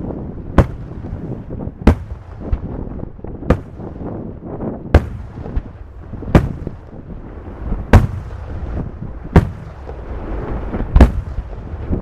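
Aerial firework shells bursting in a steady sequence, a sharp loud bang about every one and a half seconds with smaller reports between, over a continuous rumble of crackle and echo.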